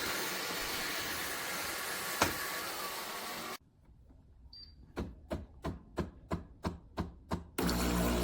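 Philips 3200 espresso machine running, a steady noisy hum with two sharp clicks. The sound then cuts out, and a row of about eight evenly spaced sharp knocks follows, about three a second.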